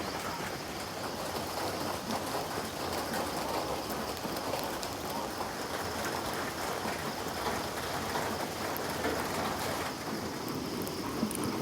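Steady heavy rain falling, an even hiss of drops with no breaks.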